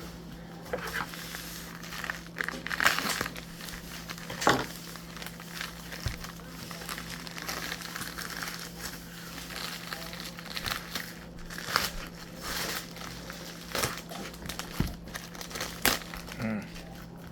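Comic books and their packaging being handled and stacked: irregular crinkling and rustling with scattered light knocks. A steady low hum lies underneath.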